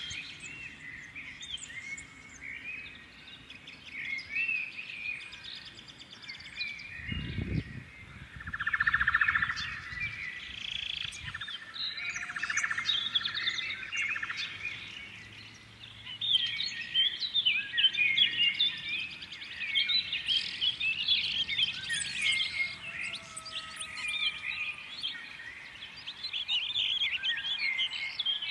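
Several birds chirping and singing at once, a dense stream of short, high calls, with a harsh buzzy trill about eight seconds in. A single low thump sounds about seven seconds in.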